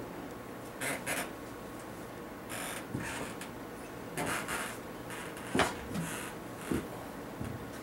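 Handling noise: short rubs and scrapes with a few knocks as an acoustic guitar is picked up and brought onto the lap. The loudest knock comes a little after halfway through.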